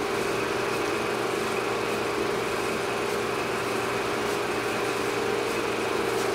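Steady mechanical drone: a constant hum over an even hiss, with no change in pitch or level.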